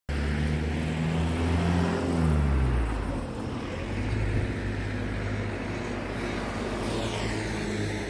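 A motor vehicle's engine running close by, a low hum whose pitch falls about three seconds in and then holds steady.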